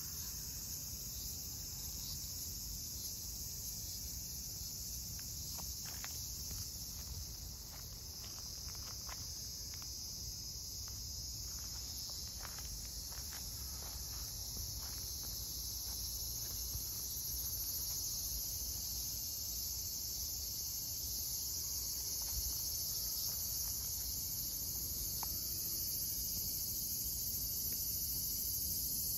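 Steady high-pitched chorus of night insects such as crickets, over a low background rumble. Scattered faint ticks and rustles are heard in the first half.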